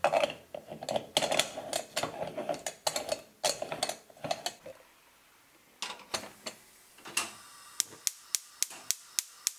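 Metal moka pot being screwed together, its threads grating in short, repeated twisting strokes. Near the end comes a quick, even run of sharp clicks from a gas stove's igniter as the burner is lit.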